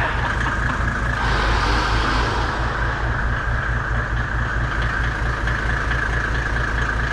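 Winch motor running steadily with a low drone, and a brief hiss between about one and two and a half seconds in.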